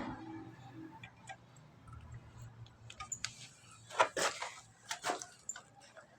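Light, scattered clicks and knocks of plumbing fittings and tools being handled, with a cluster of louder taps about four to five seconds in.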